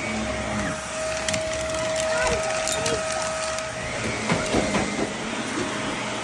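Vacuum cleaner running over a dirty carpet, with crunching and crackling as grit and debris are sucked up. A steady whine runs under it and stops about two thirds of the way through.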